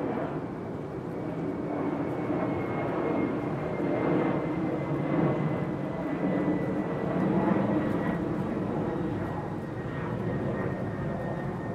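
Jet airliner passing low overhead: a steady engine rumble with a thin high whine that slowly drops in pitch as it goes over.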